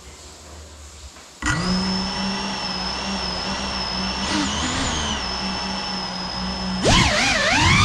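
GEPRC CineLog 35 FPV drone's brushless motors spinning up abruptly about a second and a half in, then idling with a steady high whine. Near the end the throttle comes up and the whine gets louder, its pitch wavering up and down as the drone lifts off.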